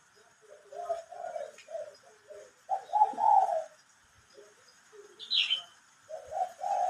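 Dove cooing in repeated phrases of low, rounded notes, with a brief higher chirp about five seconds in.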